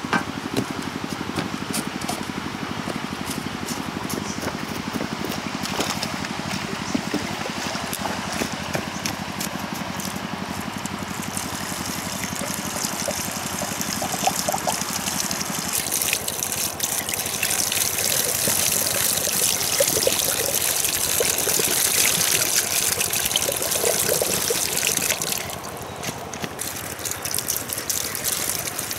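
Water poured from a plastic bucket into a small petrol water pump to prime it, splashing and gushing. It grows louder in the second half, then drops off sharply about 25 seconds in.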